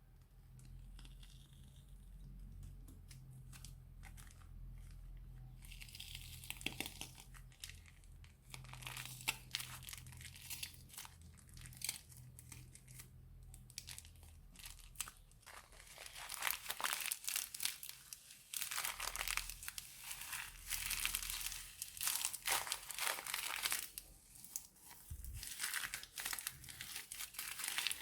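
Plastic bag crinkling and crackling as slime is squeezed and kneaded inside it. It starts a few seconds in and grows louder and busier past the halfway point.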